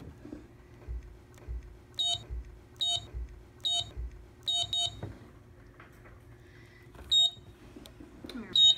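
Daktronics scoreboard control console's keypad beeping as its buttons are pressed: about seven short, high beeps, two of them in quick succession, with soft thumps of the keys being pushed.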